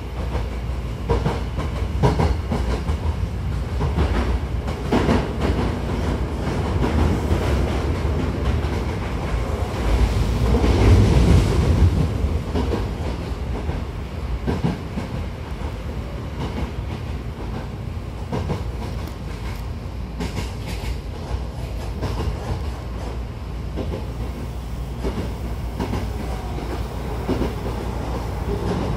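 Running noise inside a Hankyu 1000-series commuter train car under way: a steady low rumble with wheels clicking over rail joints, swelling louder for a couple of seconds about ten seconds in.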